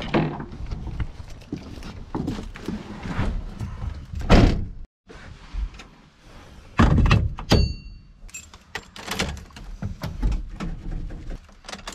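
A series of heavy thunks and knocks, car doors and a hatch or trunk being shut as gear is loaded, the loudest about four seconds in and again about seven seconds in. A short electronic beep sounds between them.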